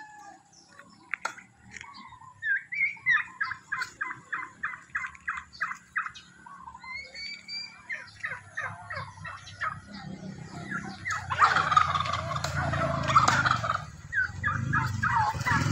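Domestic turkeys calling: a quick run of short, evenly spaced calls, about three a second, then scattered calls. From about ten seconds in, a motorcycle engine approaching rises under louder turkey calls and becomes the loudest sound.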